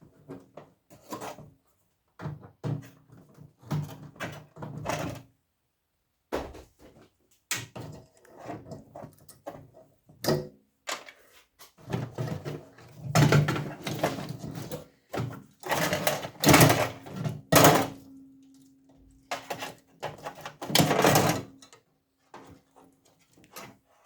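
Irregular metal clattering, knocks and scraping as a stubborn part is worked loose from the bottom of a microwave oven's sheet-metal casing by hand, in bouts that grow louder and busier in the second half.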